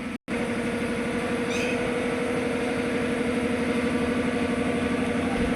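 An engine idling steadily with an even, fast pulse. The sound cuts out completely for a moment just after the start, then resumes.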